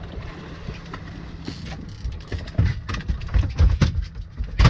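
Twin outboard motors idling with a steady low hum; from about two seconds in, a run of heavy, irregular thumps and knocks as a fish is gaffed and brought aboard.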